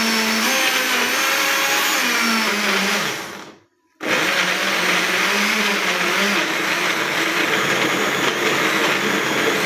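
Old Ramtons countertop blender running, chopping lemon, cucumber, pineapple and ginger with very little water. It winds down and stops about three seconds in, then is switched on again a moment later and runs steadily: pulsed on and off to spare the old motor.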